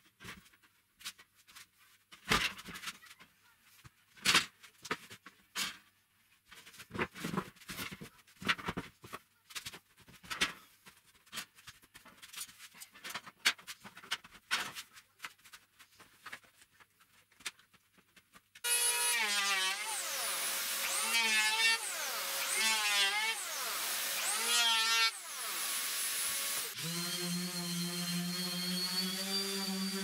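Scattered clicks, clinks and knocks as a perforated metal strap and pine boards are handled. About two-thirds of the way in a power tool starts; its pitch rises and falls for several seconds, breaks off briefly, then runs steadily.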